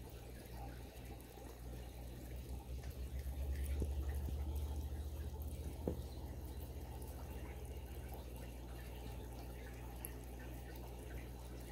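Aquarium sponge filter bubbling: air rising up the lift tube and breaking at the water surface in faint trickles and drips, over a steady low hum. A low rumble swells a few seconds in and fades again.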